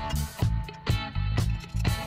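Instrumental background music with a steady beat, about two beats a second.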